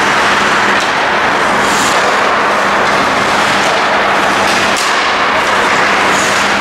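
Steady ice-rink noise during an ice hockey game, with a constant low hum and a few brief high scrapes such as skates on the ice.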